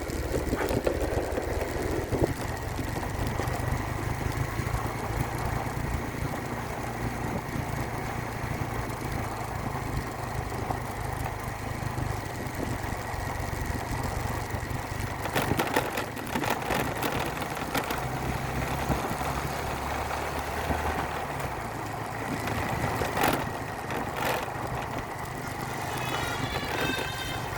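Vehicle engine running steadily, with a few sharp clicks. Near the end a bus's telolet horn, a melodic multi-tone horn, begins to play.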